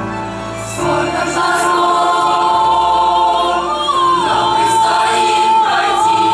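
A boys' and youths' choir singing, louder from about a second in, with a high line holding long notes over the lower voices.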